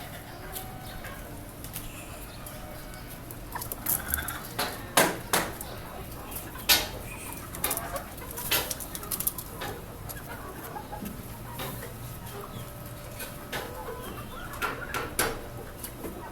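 Desi hens clucking, with short calls scattered throughout, among irregular sharp clicks and knocks.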